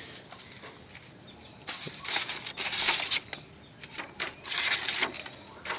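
Rustling and scraping of a stiff brown paper sheet being handled against a suitcase's fabric lining, in a few bursts of a second or so with some light knocks.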